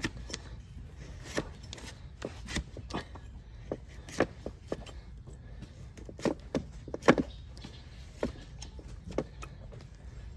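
A flat hoof knife slicing and paring through a donkey's overgrown, curled hoof horn: a run of crisp, irregular cuts and scrapes, the loudest about seven seconds in.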